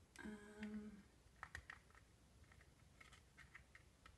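Small irregular clicks and ticks of a plastic dough knife working soft modelling dough in a plastic mold, quiet. It is preceded by a short steady hum from a voice in the first second.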